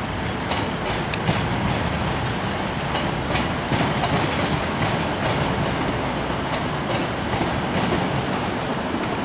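Class 158 diesel multiple unit running across the station pointwork, its wheels giving irregular clicks and clacks over the rail joints and crossings above a steady rolling rumble.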